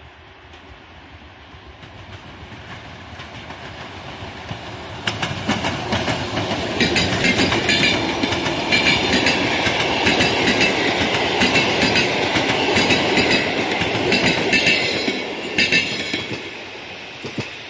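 EP09 electric locomotive hauling a rake of PKP Intercity passenger coaches past at speed. The rumble builds as the train approaches. From about five seconds in, a dense run of wheel clicks and clatter over the track comes as the coaches go by, then fades near the end.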